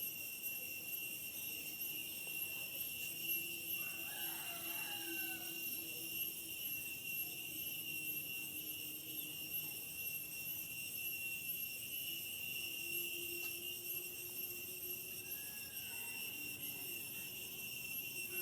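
A steady chorus of insects trilling at several high pitches. A few short chirping calls come in about four seconds in and again near the end.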